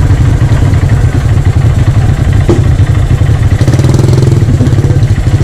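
Motorcycle engine idling steadily with a fast, even pulse, close to the microphone.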